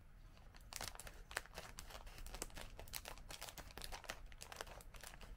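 Scissors cutting across the top of a plastic snack bag, the bag crinkling and crackling with each snip. It starts about a second in.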